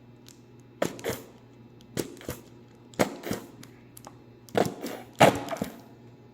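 Sharp clicks and knocks from handling the mayonnaise while spreading a sandwich, mostly in pairs about a third of a second apart, about once a second.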